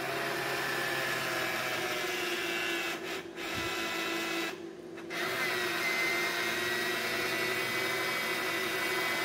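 Small electric motor whirring in three runs separated by two short breaks, tilting the headlight's dual-projector bracket through its leveling travel.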